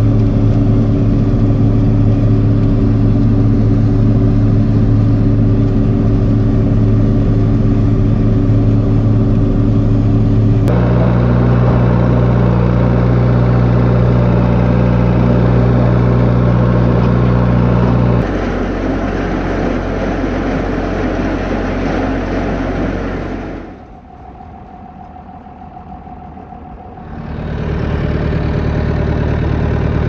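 John Deere tractor diesel engines running steadily while picking and hauling ear corn, heard in several clips that cut abruptly from one to the next, with a quieter stretch near the end.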